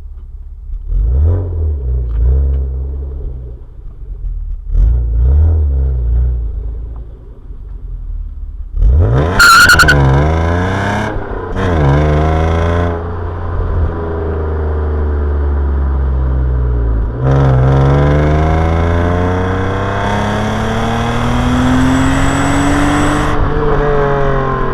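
BMW E36 328i's stock 2.8-litre inline-six being revved with a stock exhaust: low rumbling swells at first, then a sharp rev about nine seconds in that falls away and a second blip near twelve seconds. From about seventeen seconds the revs climb slowly and steadily, then drop as the throttle is released about twenty-three seconds in.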